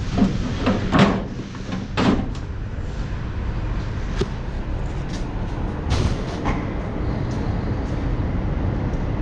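Steady mechanical hum in a body shop, with a series of knocks and clunks from handling, the loudest about a second and two seconds in and two more about six seconds in.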